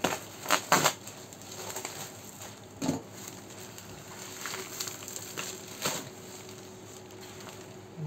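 Plastic courier mailer and bubble wrap crinkling and rustling as hands handle and pull the parcel open, with several sharp crackles, the loudest in the first second and again around three and six seconds in.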